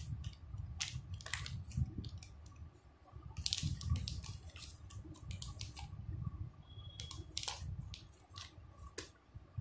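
Clear plastic sleeve around an RO membrane cartridge crinkling and crackling irregularly as the cartridge is turned over in the hands.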